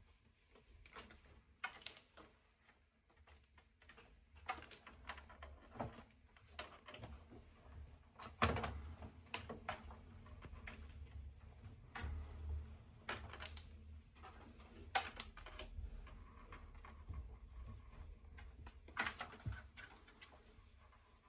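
Scattered light knocks and clicks at irregular intervals, over a low rumble of handling noise.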